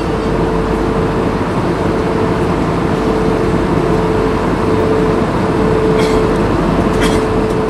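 Steady airliner cabin noise inside an Airbus A320-232 in flight, from its IAE V2500 engines and the airflow: a continuous rushing roar with a steady hum, and two faint clicks near the end.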